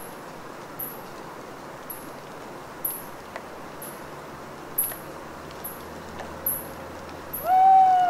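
Water dripping from rain-soaked trees, scattered drops over a steady hiss, with faint high chirps repeating about once a second. Near the end an owl gives one loud hoot, a single arching note of just under a second that drops away at its close.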